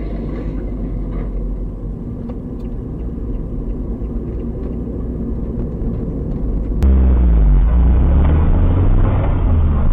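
Steady road and engine rumble inside a moving car's cabin. About seven seconds in it cuts abruptly to a louder, deeper rumble from another car.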